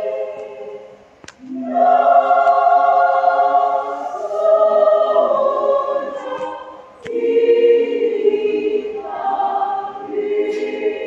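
A women's choir singing a hymn with long held notes. There are brief pauses between phrases, about a second in and again at about seven seconds.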